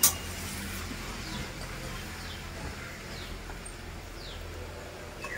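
Steady low hum of a street food stall with one sharp clank at the very start, then faint short falling chirps every second or so.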